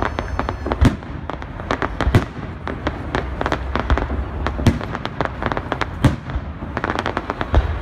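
Aerial fireworks shells bursting with a deep boom every one to two seconds, amid many sharp crackling pops, with a rapid flurry of crackles near the end.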